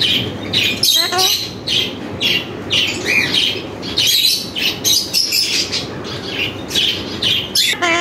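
Pet parakeets, a large Alexandrine and a smaller ringneck, chattering in a rapid run of short, high chirps and squawks.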